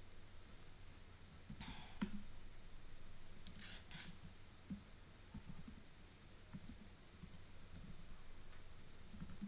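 Faint scattered clicks and taps of a laptop's keys and trackpad being worked, with short rustling noises about two and four seconds in.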